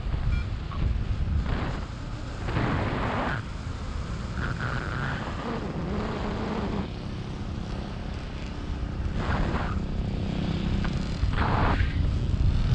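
Wind buffeting the microphone of a paraglider pilot's camera in flight: a steady low rumble with louder gusts about a second and a half, three, nine and eleven and a half seconds in.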